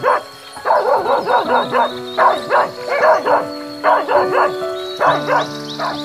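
A dog barking over and over in quick runs, over background music with long held notes.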